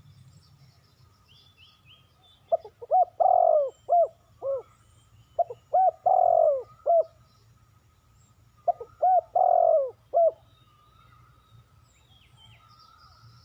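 Spotted dove cooing: three song phrases, each a few short coos around one longer drawn-out coo. Faint chirps of smaller birds sound in the background.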